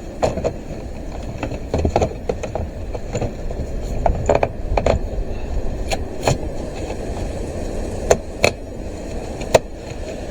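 Pallet-wood boards being fitted and tacked up against the house siding: a scatter of sharp clicks and knocks, several of them between six and ten seconds in, over a steady low rumble.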